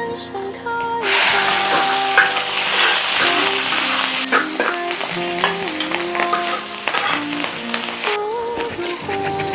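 Food sizzling and frying, a dense hiss that starts suddenly about a second in and cuts off shortly before the end, over background music.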